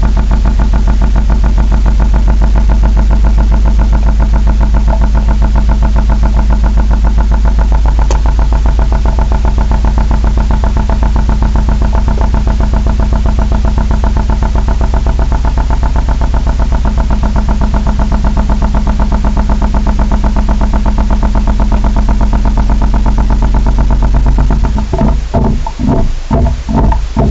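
Steady, loud mechanical drone made of several even tones over a strong low hum, which the uploader takes for an engine or machine running in a tunnel under the ground. About 25 seconds in it gives way to a pulsing, rhythmic sound.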